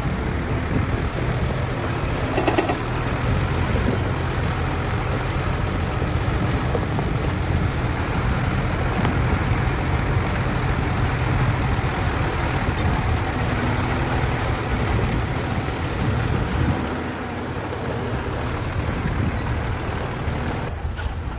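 Heavy diesel earthmoving machine running steadily under load, a low engine drone with rattling noise above it. There is a brief squeal about two and a half seconds in, and the engine eases off slightly near the end.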